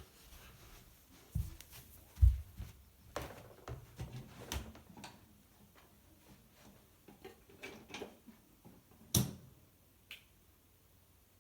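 Small plastic toys being handled and set down: scattered clicks and knocks with a few low thumps, the loudest about two seconds in and another about nine seconds in.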